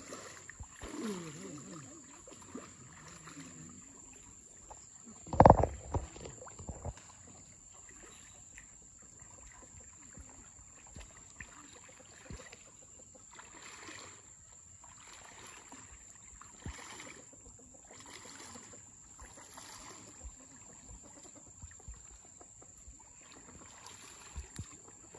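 Pond water sloshing and swishing in soft recurring surges as people wade through it hauling a fishing net, with one sudden loud thump about five seconds in.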